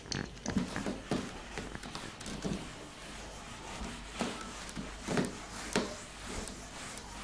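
Whiteboard being wiped with a duster: a run of soft, irregular rubbing strokes, with a few louder ones in the second half.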